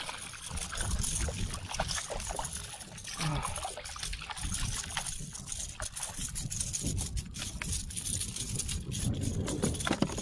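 A hooked bluefish splashing and thrashing at the water's surface beside a kayak as it is brought in, with irregular splashes and many short clicks and knocks.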